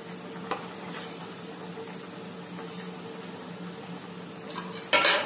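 Batter-coated cabbage pieces deep-frying in hot oil in a kadai, a steady sizzle. A few light clicks come early on, and a short, louder noise near the end.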